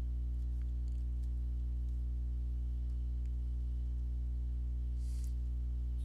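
Steady low electrical hum with many overtones, unchanging throughout, with one short click about five seconds in.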